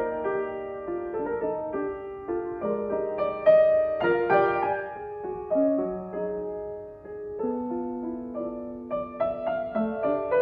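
Solo piano playing a gentle piece, single notes and chords struck and held, with the loudest chord about three and a half seconds in and a softer stretch a few seconds later before the playing picks up again.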